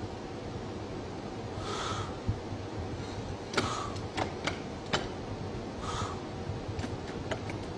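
Slow, audible breaths every couple of seconds over a quiet background hiss, with a cluster of sharp clicks in the middle and a few fainter clicks near the end.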